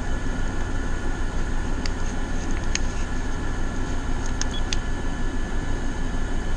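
Steady hum and hiss of room air conditioners running, with a few light clicks a couple of seconds in.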